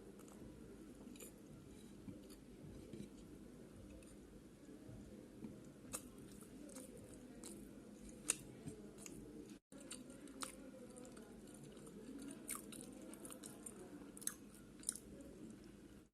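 Close-miked chewing of chicken pizza, with soft mouth sounds and scattered sharp crunchy clicks over a low steady hum. The sound drops out completely for an instant about two-thirds of the way through.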